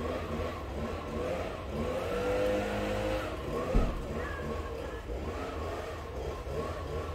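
A brush cutter's small engine runs in the background, its pitch rising and falling over and over as it is throttled, loudest around the middle. A single thump comes about four seconds in.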